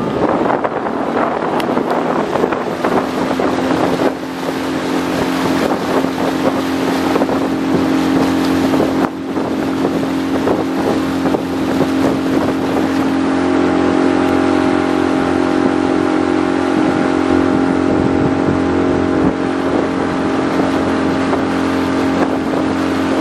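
Small fishing boat's motor running steadily at cruising speed, a constant hum over a steady rush of wind and water.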